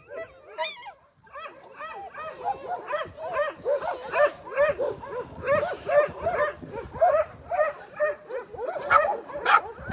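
Puppies yipping and whining in a run of short high-pitched cries, about three a second, starting a little over a second in.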